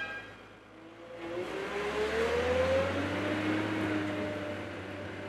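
A motor speeding up, its whine rising in pitch for about two seconds and then levelling off, over a steady hiss.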